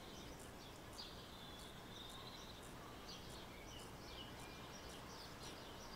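Faint scratching of a fine-tip pen drawing on sketchbook paper, in a series of short, light strokes over low background hiss.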